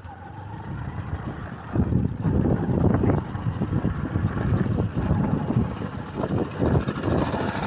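Motorcycle riding along a dirt track, its engine running under heavy wind buffeting on the microphone. The wind noise gets louder about two seconds in and stays gusty.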